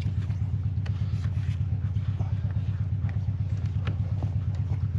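A steady low engine-like drone with a rapid, even pulse, with a few faint clicks and taps of a hand tool working at the fuel lines.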